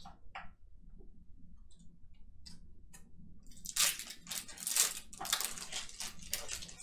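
A foil trading-card pack wrapper being torn open and crinkled: a few faint clicks, then from about four seconds in a quick run of crackling rustles.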